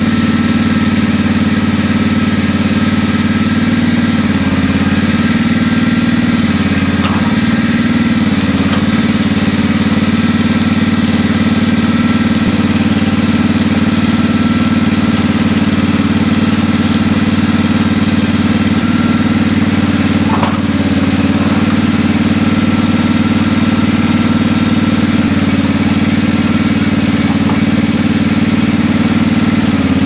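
Small air-cooled engine on a grain auger running steadily at close range, loud and even, with a brief small dip about twenty seconds in. It is driving the auger along the row of silos as it is moved.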